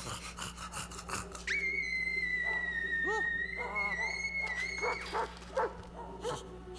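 Animal-like creature sounds from a film soundtrack. A quick run of clicks comes first, then a long, high, steady whine of about three and a half seconds with short chirping calls under it.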